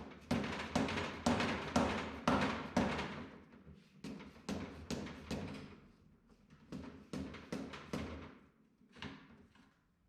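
A series of sharp taps and knocks, about two to three a second, each with a short ring, thinning out near the end: work on the touch control housing during the teardown.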